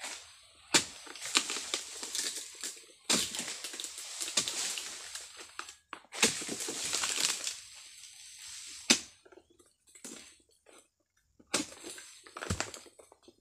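A long-pole harvesting sickle cutting oil palm fronds. Three times a sharp crack of the cut is followed by two to three seconds of leafy rustling and crashing as the frond slides down and falls, then a few more single knocks near the end.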